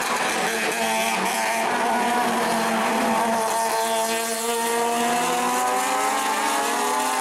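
Racing car engines running at high revs as a pack of cars goes through the corners; the engine note drops around the middle, then climbs steadily as they accelerate out.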